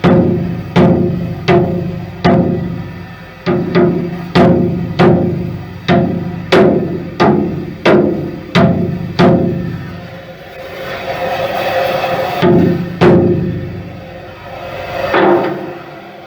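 Background music built on percussion: sharp drum strikes with a ringing pitch, about one every two-thirds of a second, easing into a softer held passage with a few more strikes near the end.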